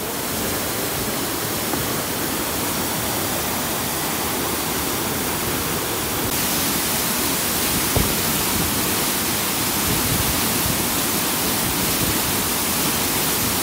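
Himalayan mountain stream rushing steadily, with a single faint click about eight seconds in.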